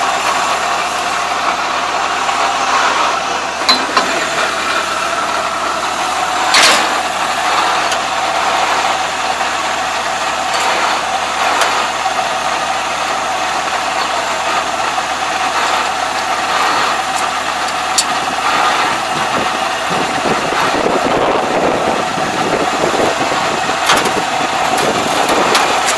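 ANR460 combine harvester running steadily at idle, with a few short sharp knocks as its rear straw-discharge parts and covers are handled.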